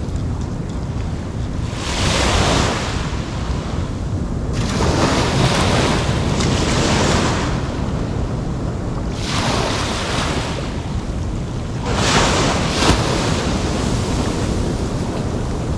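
Small ocean waves breaking and washing up a sandy beach in about four swells, over a steady low rumble of wind on the microphone.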